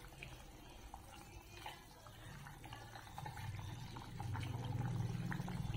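Liquid bubbling in a cooking pot on the stove, with a few faint clicks early on; the low bubbling grows louder from about halfway through.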